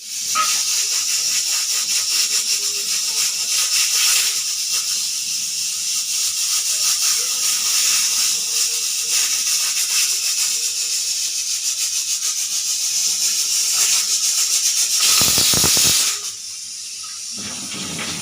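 Pressure cooker whistle blowing: steam hissing out steadily under the lifted whistle weight. About fifteen seconds in it gives a louder, fuller blast, then falls quieter near the end.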